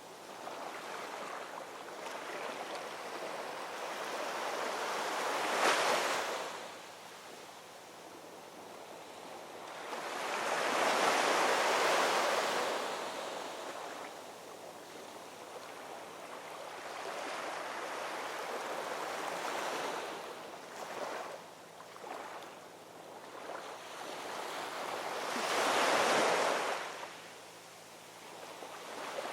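Ocean waves rolling in and breaking on a shore, swelling and receding in slow surges about every five to fifteen seconds, with the loudest breaks about six, eleven and twenty-six seconds in.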